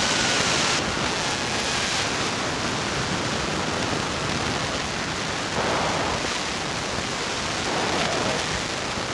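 Steady, even hiss of noise with no rhythm or distinct strikes.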